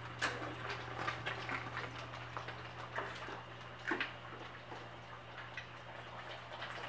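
Hot oil crackling as turon fry in a pan: scattered sharp pops and ticks, a few louder ones about three and four seconds in, over a steady low hum.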